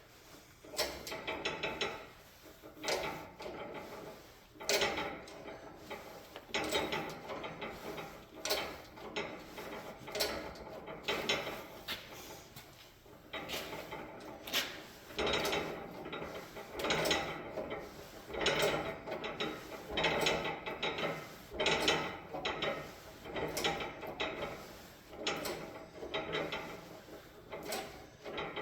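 Hydraulic press forming a 3/16-inch steel hinge strap in a hinge rolling die: irregular mechanical clicks, creaks and scraping of metal as the press is worked, in uneven bursts every second or two.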